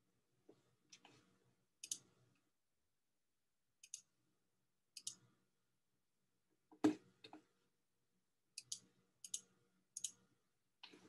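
Faint, short clicks of hands rubbing together in thick white stoneware clay slip, in irregular bursts about once a second. The loudest comes a little before seven seconds in.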